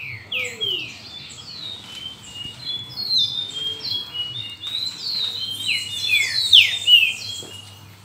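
A flock of saffron finches calling together: a dense chatter of short chirps and quick falling notes, overlapping throughout and busiest and loudest about two-thirds of the way through.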